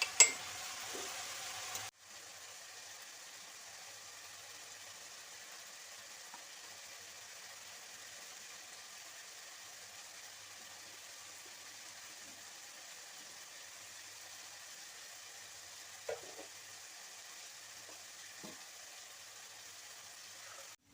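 Vegetables frying in a pan with a soft, steady sizzle. The sound drops out for a moment about two seconds in, and there are a couple of faint taps near the end.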